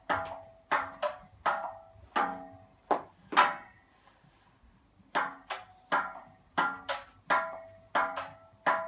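A table tennis ball being hit back and forth between a handsaw blade and a paddle: a run of sharp ticks, about two to three a second, many leaving a short ring. The hits stop for about a second and a half partway through, then pick up again.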